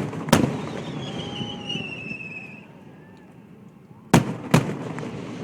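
Aerial fireworks shells bursting: one bang just after the start, then two more bangs about four seconds in, less than half a second apart, each followed by a rumbling echo. Between the bursts, a high whistle falls slowly in pitch for about a second and a half.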